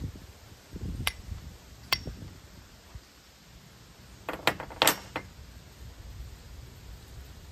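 Flint and steel: a steel striker struck against a flint to throw sparks onto char cloth. There is a sharp scraping click about a second in and another at two seconds, then a quick run of four or five strikes around four and a half to five seconds.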